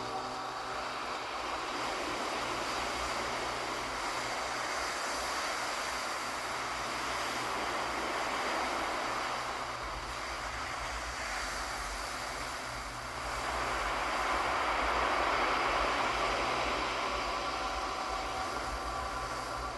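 Ocean waves washing in as a steady rushing roar, swelling louder about two-thirds of the way through as a bigger wave breaks. Soft ambient music fades out at the start and faintly returns near the end.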